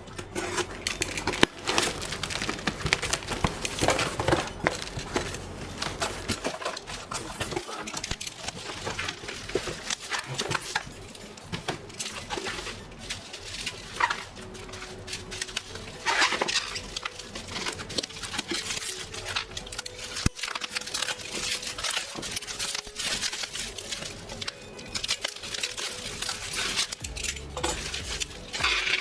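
Irregular rustling, clicks and clatter of a parcel being handled and opened.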